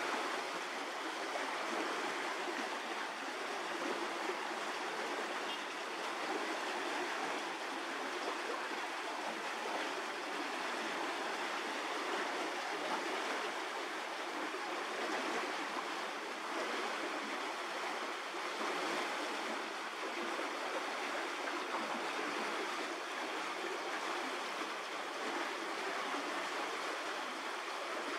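A steady, even rushing noise, like running water, with no separate sounds in it.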